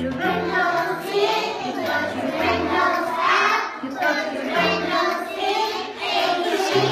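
A group of young children singing together, with musical accompaniment underneath.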